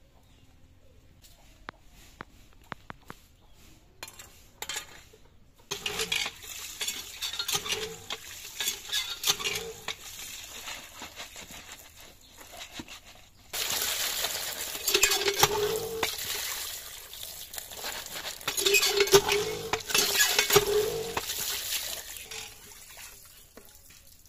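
Hand pump being worked, water gushing and splashing into a plastic basket as fish are rinsed in it by hand. The water comes in surges about every second or two, starting about six seconds in and loudest in the second half.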